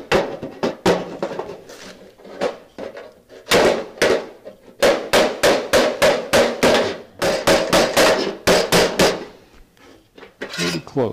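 Hammer blows on the sheet-steel dash panel of a 1966 Chevelle, struck in quick runs of several blows with a metallic ring, to flatten an area that is rolled in slightly.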